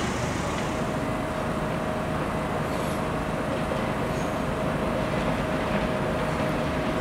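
Passenger train running in the station: a steady mechanical noise with a steady whine that comes in about half a second in.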